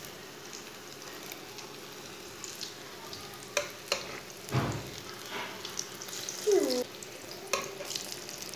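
Batter-coated okra deep-frying in hot oil in a metal kadai, a steady sizzle. A steel spatula clicks sharply against the pan a few times, and there is a short falling squeak as the pieces are turned.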